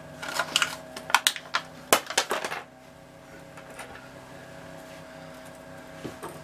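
Plastic blister packaging crackling and clicking as a pack of metal hose clamps is torn open, with light metallic clinks, for about two and a half seconds; after that only a faint steady hum.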